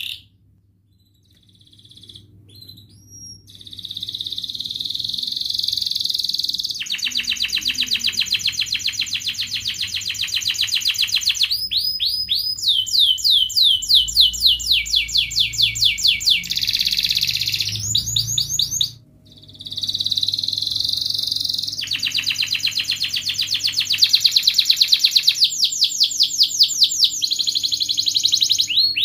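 Domestic canary singing a long song of fast trills and rolls and quick runs of repeated falling whistles. It starts after a brief pause and breaks off briefly about two-thirds of the way through before carrying on.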